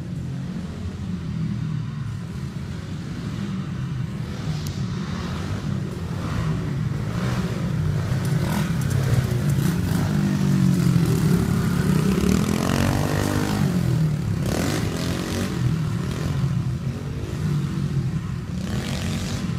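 A 70cc four-stroke Baja Dirt Runner dirt bike engine running and revving as it rides around a dirt track. It grows louder as it comes close about halfway through, and its pitch sweeps up and down.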